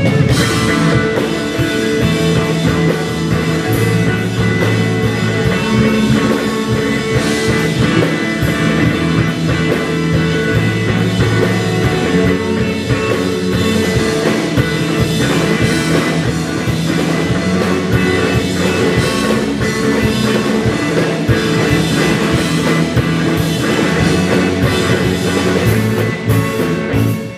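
Instrumental math rock played live by a band of two electric guitars, electric bass and drum kit, with the full band cutting off abruptly near the end.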